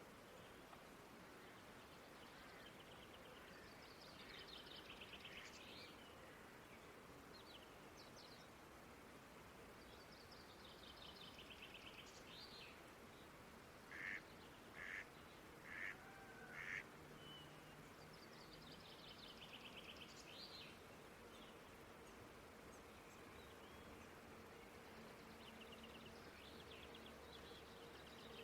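Quiet countryside field ambience: a faint steady hiss of open air, with a small bird's high trilled song repeating every several seconds. About halfway through, four short, louder calls come in quick succession, about a second apart.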